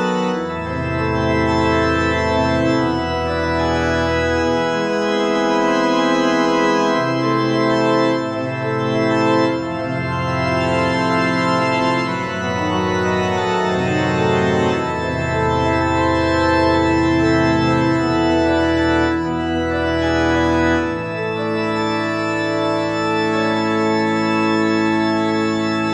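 Organ music: held chords changing every second or two over slow, sustained bass notes.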